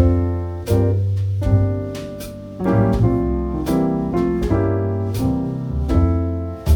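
Background music: chords struck about once a second, each ringing and fading, over low sustained bass notes.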